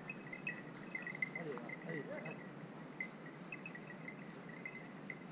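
Hunting dogs baying in the scrub, a few short bays about one and a half to two seconds in, with faint high clinking.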